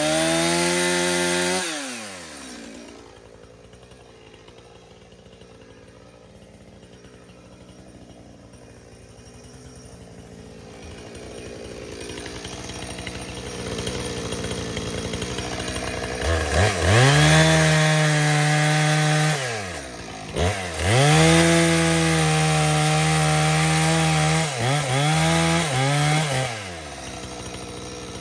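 Two-stroke chainsaw revving high, then dropping back and running low for several seconds while it cuts a large downed tree. From about halfway through it is run at full throttle in several long stretches with brief dips between them, and it eases off near the end.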